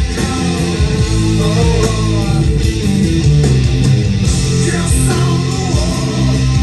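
Rock song with guitars and a singing voice, played from a cassette on a Sony LBT-ZUX10D mini hi-fi system.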